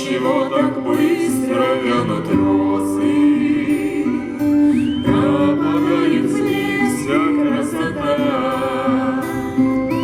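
Music: a vocal ensemble singing over instrumental accompaniment.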